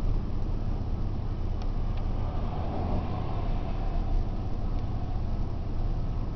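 Steady low rumble of strong wind and road traffic, with a vehicle passing and swelling briefly about midway.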